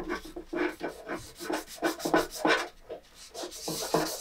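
Fine 600-grit sanding pad rubbed by hand over a molded plastic toy-kitchen piece in short back-and-forth strokes, about three a second, scuffing the surface so paint will hold without primer.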